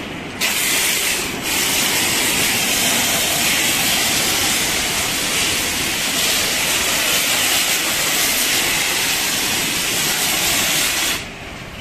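Compressed-air foam tank's lance spraying snow foam onto a motorcycle: a loud, steady hiss that starts about half a second in, breaks off briefly after about a second, then runs on and cuts off near the end.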